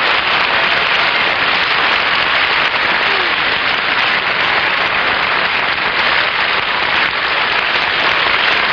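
Studio audience applauding, loud and steady throughout.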